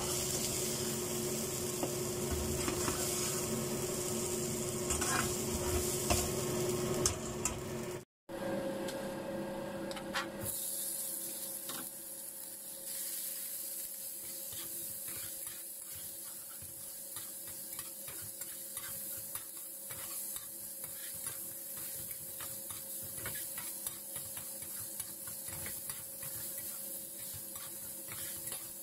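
Food frying in oil in a frying pan, stirred with a metal spatula that scrapes and clicks against the pan over a steady sizzle. First potato sticks are stirred and scooped; after a brief cut about eight seconds in, small pieces of chicken sizzle more quietly with occasional spatula scrapes.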